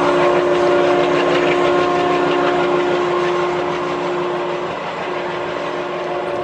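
ALCo WDM3A diesel locomotive's two-tone horn sounding in a long blast, breaking off for a moment near the end and then sounding again, over the running noise of the moving train.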